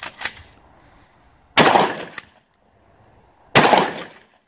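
Two loud gunshots from a long gun, about two seconds apart, each trailing off quickly and followed by fainter sharp clacks.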